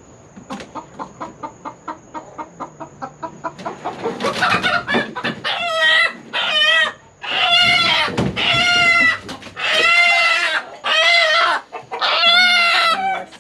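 A chicken clucking in a fast run of short clucks, about five a second, then squawking loudly as it is grabbed from its roost: about a dozen long, shrill distress squawks.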